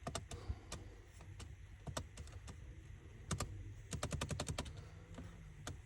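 Typing on a computer keyboard: scattered key clicks, with a quick run of clicks about four seconds in.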